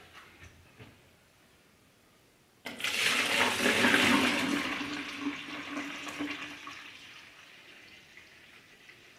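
Cooled wort poured in a heavy stream from a stainless steel stockpot into a glass jug fermenter, splashing and foaming as it fills. The pour starts suddenly about three seconds in, after a few faint knocks, and is loudest at first, then tapers off as the stream thins.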